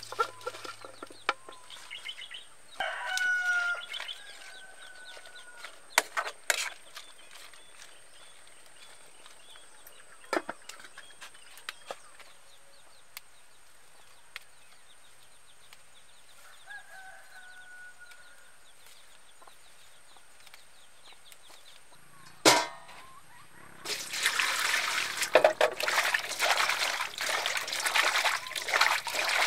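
A rooster crows about three seconds in and again more briefly midway, with a few sharp clicks between. From about 24 seconds on, water splashes and sloshes as green chili peppers are washed by hand in a basin.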